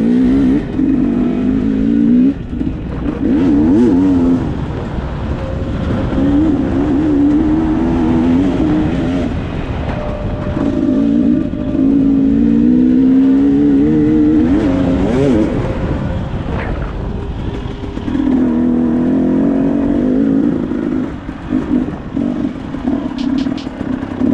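KTM hard-enduro motorcycle engine revving in about five bursts of a few seconds each, the throttle opened and closed so that the pitch rises and falls, as the bike works up a difficult trail.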